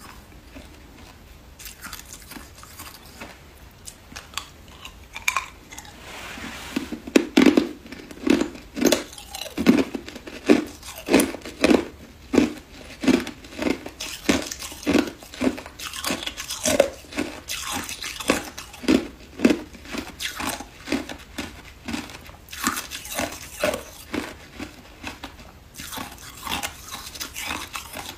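Hard ice being bitten and chewed close to the microphone. A few faint crunches come first, then from about seven seconds in a steady run of loud crunches, roughly one every two-thirds of a second, as the ice is ground between the teeth.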